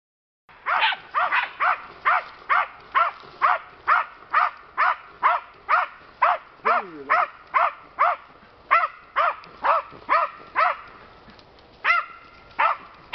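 Small dogs barking steadily at a wild boar, about two sharp barks a second, with a pause of about a second near the end before the barking resumes.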